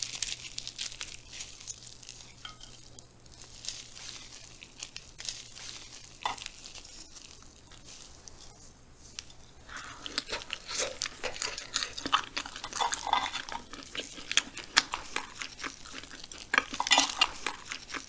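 Close-miked gloved hands tearing a grilled frog apart, with sparse faint crackles, then from about ten seconds in, crisp bites and chewing of the grilled frog.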